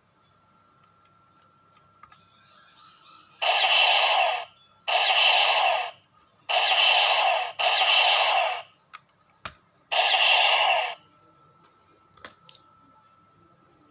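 Kamen Rider Skull toy gun playing its electronic firing sound effect five times, each burst about a second long, with sharp clicks from the gun between shots.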